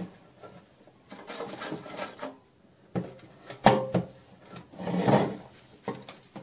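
Air fryer drawer and basket scraping and shifting on a wooden tabletop as they are handled, with two sharp knocks about three and a half seconds in.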